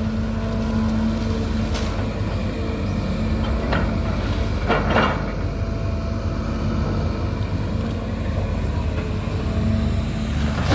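Excavator's diesel engine running steadily, with a short, sharper sound breaking in about five seconds in.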